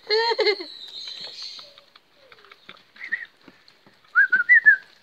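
Presa Canario puppies whining and squeaking: a short wavering cry at the start, then a brief high squeak about three seconds in and a quick run of high-pitched squeaks near the end.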